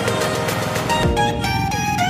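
Background music with plucked-string notes and a steady beat.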